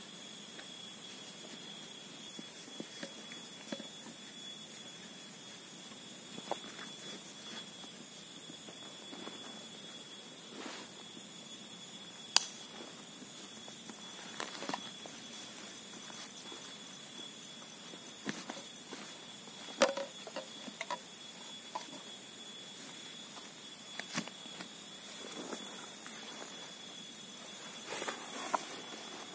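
Rustling of a backpack and gear being packed and strapped, with occasional sharp clicks, a few of them standing out, over a steady high-pitched tone.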